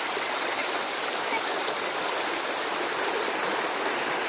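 Shallow stream water rushing steadily, an even hiss with no distinct splashes.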